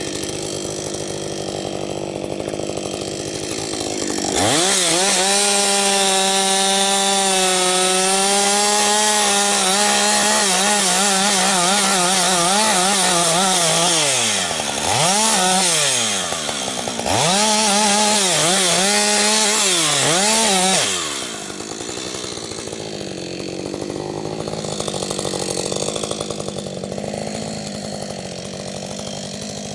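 Husqvarna 555 two-stroke chainsaw with AutoTune idling, then opened up to full throttle about four seconds in and cutting through wood, its engine note wavering under load. The throttle is let off twice briefly near the middle, and a little past two-thirds of the way through it drops back to a steady idle.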